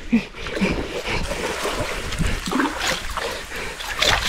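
Water splashing and sloshing irregularly as a hooked black bass is fought and brought in.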